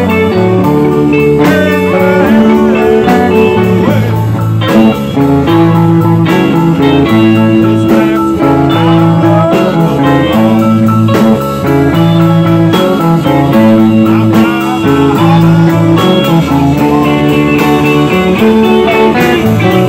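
Live swamp pop band playing an instrumental passage: electric guitars over a steady drum beat, with no singing.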